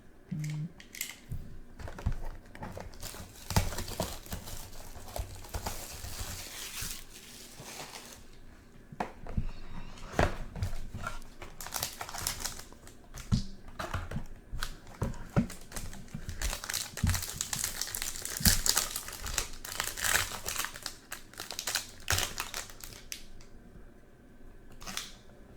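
Plastic wrapping crinkling and tearing as a sealed trading-card box is unwrapped and opened by hand, with many small crackles and clicks, easing off near the end.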